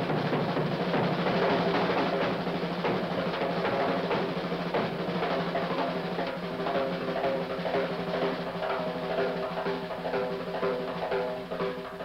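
Jazz drum kit solo on an old film soundtrack, dull with no high end: fast, dense strokes and rolls on snare, toms and bass drum. From about halfway, held notes from the band come in under the drumming.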